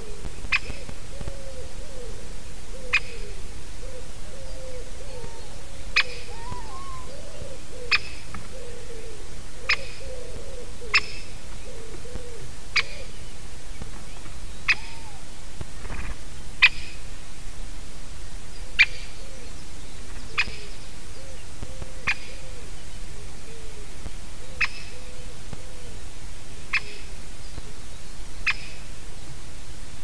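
A woodpecker calling close by: short, sharp single notes, about one every two seconds. Low wavering calls sound underneath for most of the time.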